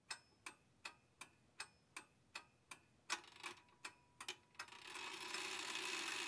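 Faint, regular ticking, close to three ticks a second, growing less even after about three seconds. From about four and a half seconds in, a hiss swells up under it.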